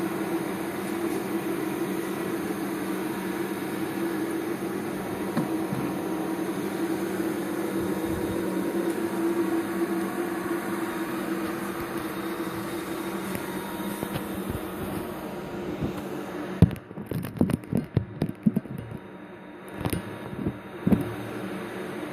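MIG welding steel with a ONE-WELDING Tec MIG/ARC 350TT inverter welder: a steady buzzing arc with an underlying hum. About sixteen seconds in the steady sound stops and gives way to a string of irregular sharp pops and knocks, the loudest at their start and again about a second before the end.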